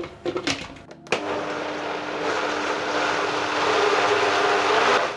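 High-speed countertop blender: a few knocks as the jar is set on its base, then the motor starts about a second in and runs steadily with a constant hum through a thick pumpkin and silken tofu mixture. It stops just before the end.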